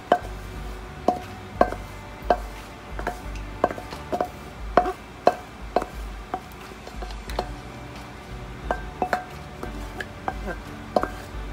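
Wooden spatula knocking and scraping against a wok, pushing mussels in their shells and sauce out onto a plate: sharp knocks about one or two a second, each with a brief ring.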